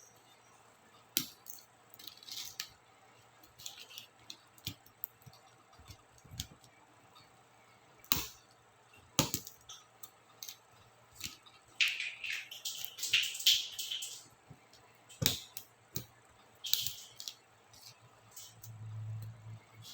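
Laptop keycaps and their plastic clips being worked loose by hand: scattered sharp plastic clicks and snaps, with a run of scratchy scraping about twelve to fourteen seconds in.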